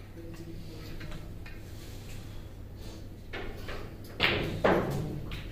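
Two loud knocks about half a second apart near the end, over a low steady hum.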